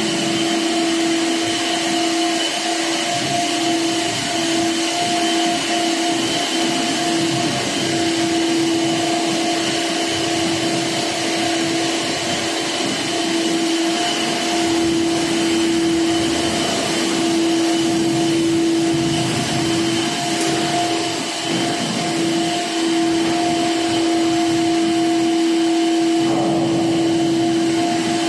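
Ship's machinery in a thruster compartment running continuously: a loud, steady drone with several constant whining tones on top that never change pitch.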